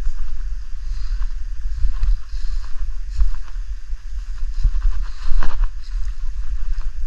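Wind buffeting the microphone as a steady low rumble, with scattered light clicks and one louder knock about five seconds in.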